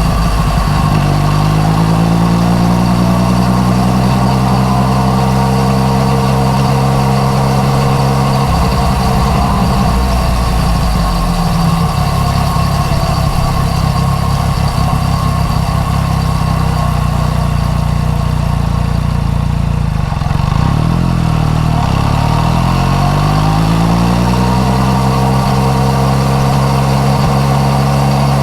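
Yamaha MT-09 Tracer's inline-three engine through an Akrapovic exhaust, ridden on the road. The engine note climbs in the first couple of seconds, holds steady at cruise, drops off about twenty seconds in, then climbs again and settles back to a steady cruise.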